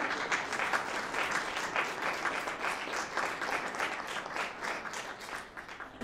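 Audience applauding, many hands clapping in a dense patter that gradually tails off near the end.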